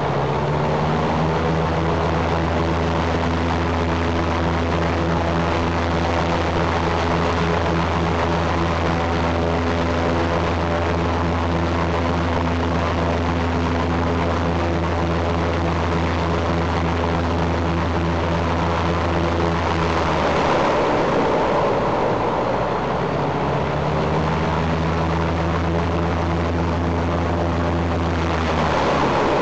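Shvetsov ASh-82T fourteen-cylinder radial engine of an Ilyushin Il-14, cowlings removed, running loud and steady in a ground run-up with the propeller turning. About twenty seconds in it turns rough and noisy for a couple of seconds before settling back to a steady note, and it changes again near the end.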